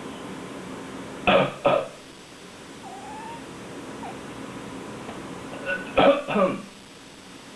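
A person coughs twice in quick succession about a second in. A few seconds later a cat answers with a short meow that falls in pitch, sounding like a complaint.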